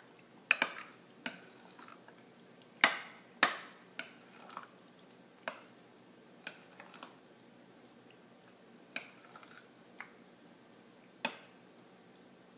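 A spoon clinking and tapping against a bowl while chicken is mixed into a yogurt marinade: about a dozen sharp, irregular taps, the loudest in the first few seconds, then sparser.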